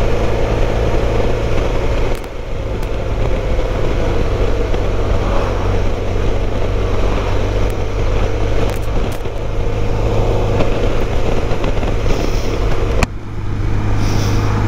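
Motorcycle engine running steadily at cruising speed with wind rushing past, heard from the rider's position. The sound changes abruptly about a second before the end, then settles back into a similar steady drone.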